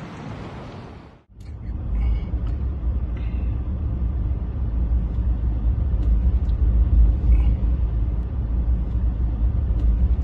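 Wind noise on the microphone, then, after an abrupt cut about a second in, a running engine's steady low rumble with a constant hum.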